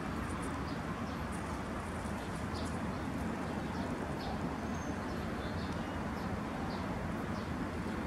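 Steady outdoor ambience: a constant low rumble like distant traffic, with small birds giving many short, high chirps scattered throughout.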